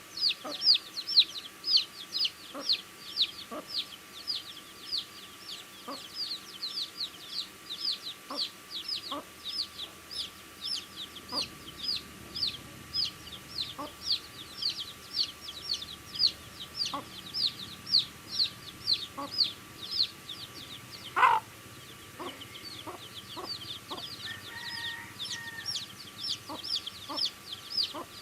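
Baby chicks peeping nonstop: short, high notes that fall in pitch, about two to three a second, mixed with light pecking taps as they eat. About three-quarters of the way through, one louder, lower call rises in pitch and is the loudest sound.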